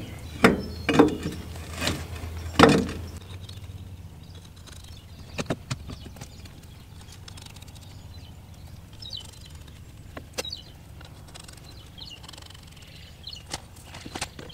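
A few loud knocks and crunches in the first three seconds as a tractor front wheel and tyre is handled on gravel and worked onto the hub studs, then a quieter stretch with light clicks and faint bird chirps.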